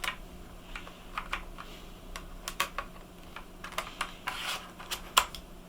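Irregular small plastic clicks and light scraping from handling a laptop's underside parts during disassembly.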